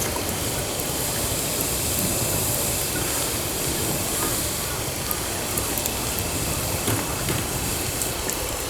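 Wood campfire burning: a steady hiss with scattered sharp crackles and pops.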